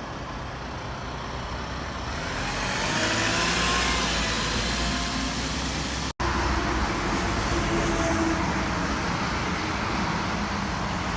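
Steady road traffic noise, swelling about three seconds in, broken by an abrupt cut about six seconds in.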